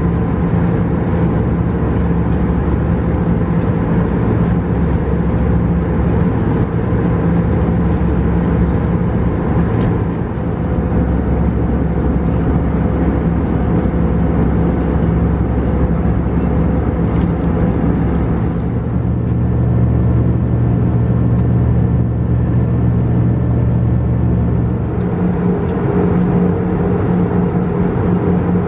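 Airbus A320 cabin noise: the jet engines running with a steady rush and several held tones, which shift in pitch a few times as the thrust changes.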